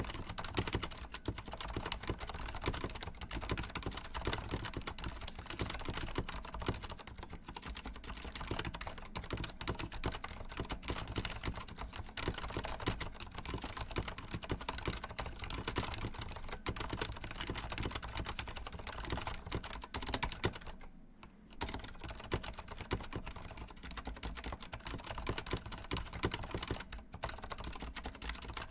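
Continuous fast typing on a Corsair Strafe mechanical keyboard with Cherry MX Silent switches: a dense run of soft key clicks, with a short pause about three-quarters of the way through.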